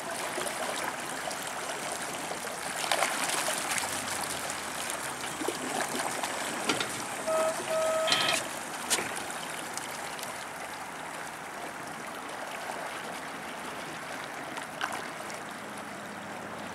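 Water churning and splashing in the wash of a small electric trolling motor's propeller as the boat moves along. The sound is steady, with a few splashy spikes. About halfway through come two short beeps.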